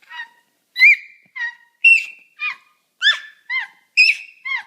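A dog making a run of short, high-pitched squeaky whines, about two a second, each call bending up and then down in pitch.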